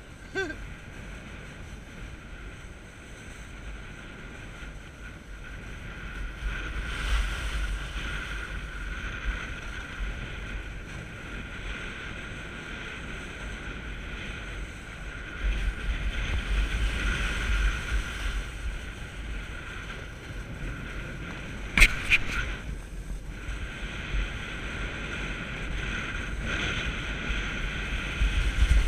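Snowboard sliding and scraping down a groomed slope, with wind rushing over the microphone; the noise swells and eases as the board turns and picks up speed. A single sharp click comes about three quarters of the way through.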